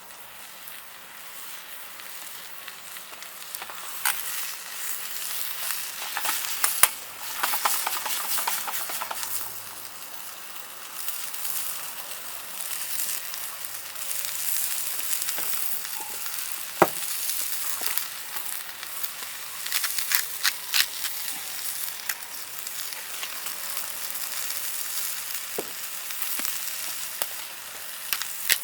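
Food frying and sizzling in a pan, with occasional sharp clicks and scrapes of a utensil stirring it.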